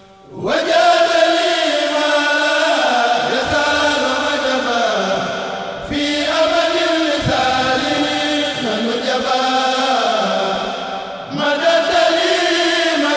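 A kourel of Mouride singers chanting an Arabic khassida (Sufi devotional poem) together, in three long melodic phrases, each starting after a short breath: one at the start, one about six seconds in, one about eleven seconds in.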